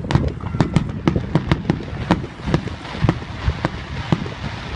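Aerial fireworks shells bursting, a rapid, irregular run of sharp cracks and pops, several a second, over a low rumble.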